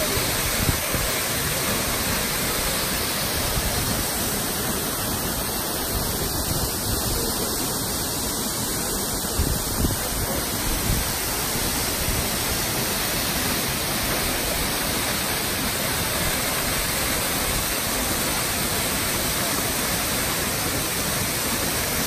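Minoo Falls, a tall waterfall, pouring into its plunge pool: a steady, unbroken rush of falling water.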